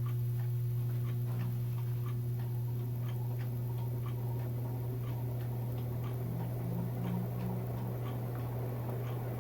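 Heritage hugger ceiling fan running on its first test after installation: a steady low motor hum with a light regular ticking, about two or three ticks a second.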